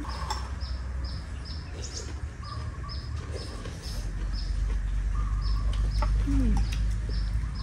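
A small bird chirping over and over in short, high notes, about two or three a second, with a brief pause midway.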